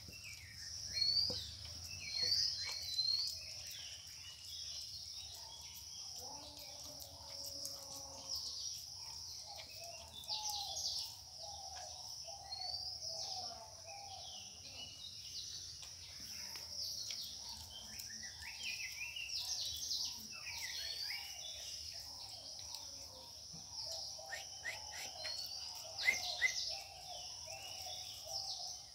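Birds chirping and calling, many short rising and falling notes throughout, over a steady high-pitched insect drone.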